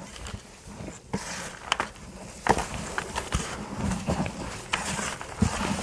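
Potting soil being mixed with water by hand in a plastic bucket: irregular rustling and scraping, with scattered light knocks against the bucket.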